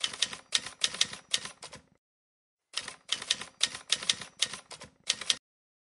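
Typing sound effect: quick key clacks in two runs of about two to two and a half seconds each, with a pause of nearly a second between them.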